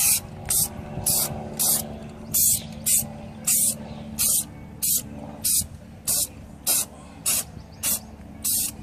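Aerosol can of rubberized truck bed undercoating spraying in short hissing bursts, about two a second, over a faint steady low hum.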